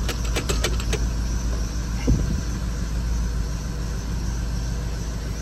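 Ford 6.0 L Power Stroke V8 turbo-diesel running steadily just after starting, heard from inside the cab, with air still being pushed out of its high-pressure oil system. A quick run of sharp clicks comes in the first second and a single thump about two seconds in.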